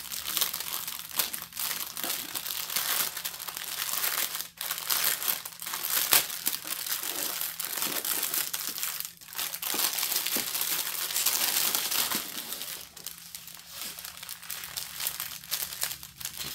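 Clear plastic wrap crinkling as hands handle it and pull it off a bundle of small plastic drill bags. The crinkling is dense for about the first twelve seconds, then lighter as the loose bags are handled.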